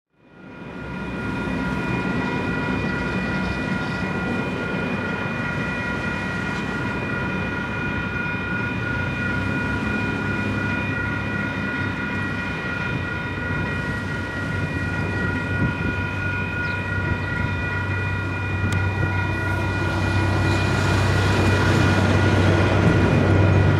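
Level crossing alarm bells ringing steadily. Over the last few seconds a DC-class diesel-electric locomotive's engine rumble grows louder as the train approaches the crossing.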